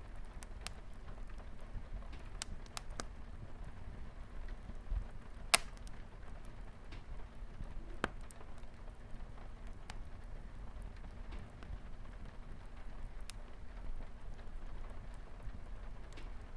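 Wood fire crackling in a fireplace, with scattered sharp pops (the loudest about five and a half seconds in, another about eight seconds in), over the steady hiss of light rain on a window.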